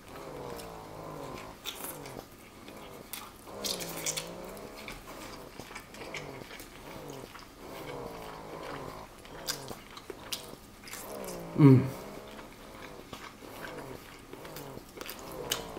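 A man chewing roast turkey with mouth clicks and smacks, humming "mmm" through a closed mouth several times. The loudest is a short hum with falling pitch about three quarters of the way through.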